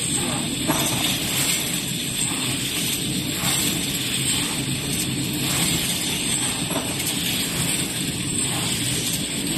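Ampoule filling and sealing machine running: a steady mechanical drone and hiss, with faint, irregular light clinks of ampoules moving through the line.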